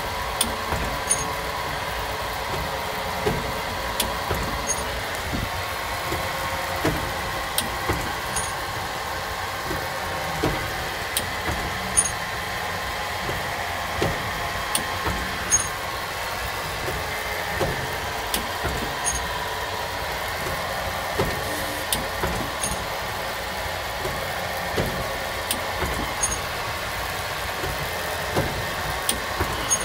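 Depositor machine running through its cycle: a steady mechanical hum from the belt-driven drive, with a sharp click about every three and a half seconds, each followed shortly by a short high tick, over frequent lighter knocks from the cam and linkage.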